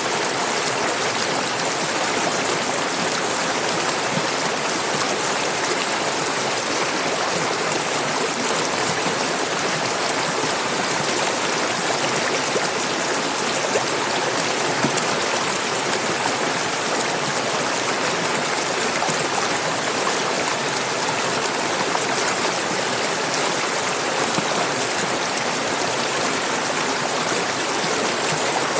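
Clear mountain river flowing, a steady full rush of running water with no change.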